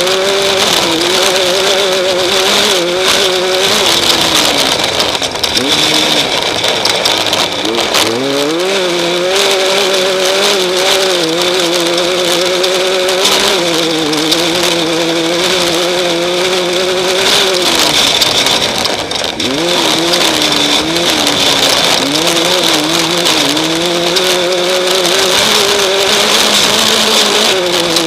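Off-road race car engine heard onboard at race speed, its pitch rising and falling with throttle and shifts, dropping off and climbing back several times, over a steady hiss.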